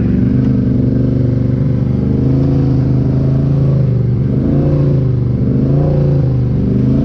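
Polaris Sportsman 850 ATV's parallel-twin engine running through a Big Gun Evo U exhaust while riding, at a fairly steady throttle, with small rises and dips in engine speed around the middle.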